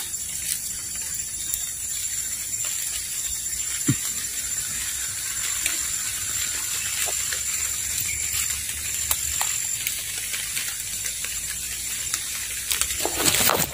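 Tropical forest ambience: a steady high-pitched insect drone, with scattered soft rustles and clicks and a louder rustle near the end.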